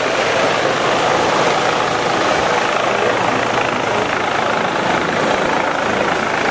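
ADAC rescue helicopter's rotors and turbine running steadily as it comes in to land.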